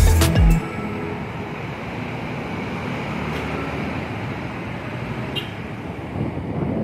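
Street traffic: cars and motor scooters passing, a steady even hum and hiss. The last heavy bass beats of a music track cut off about half a second in.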